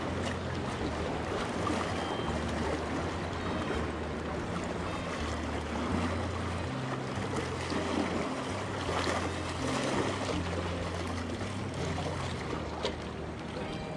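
Small sea waves washing against the rocks, with wind buffeting the microphone in gusts.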